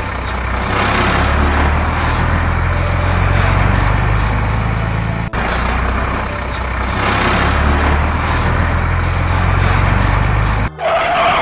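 Heavy truck engine running steadily with a deep hum, briefly cut off about five seconds in, then giving way to a different sound near the end.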